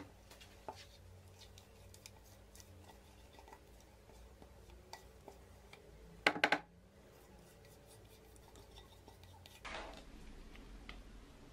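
Thick cake batter being poured and scraped from a stainless steel mixing bowl into a baking tray, with faint small ticks. About six seconds in comes a quick run of sharp knocks as the spatula and metal bowl strike each other, and near the end a soft scraping as a silicone spatula spreads the batter in the tray.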